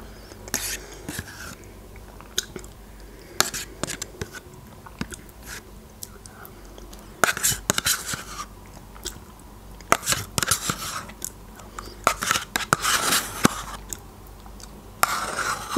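Close-miked sounds of eating yogurt from a spoon: wet mouth and lip sounds, with the spoon clicking and scraping against the yogurt cup in short, irregular bursts.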